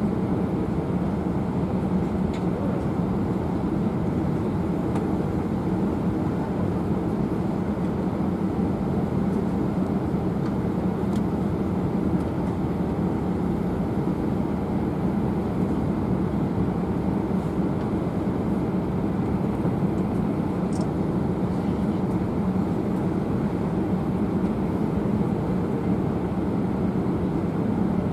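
Steady cabin noise inside an Airbus A319-111 airliner: the even drone of its CFM56 turbofan engines and airflow, with a steady low hum and a few faint ticks.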